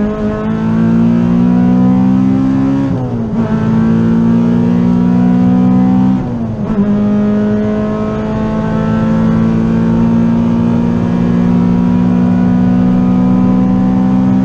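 Honda B18C Type R 1.8-litre VTEC four-cylinder in an EG Civic pulling hard at full throttle, heard from inside the cabin, its pitch climbing steadily. It shifts up twice, about three and six and a half seconds in, each time with a brief dip and a slightly lower pitch that then climbs again.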